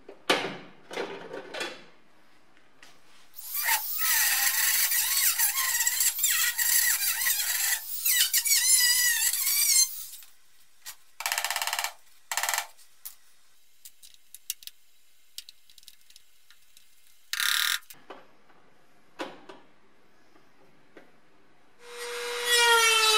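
Power tool cutting into the car's steel sill panel in a long, screeching run, followed by short bursts. Near the end a rotary tool with a small cutting disc starts up with a loud whine that falls in pitch.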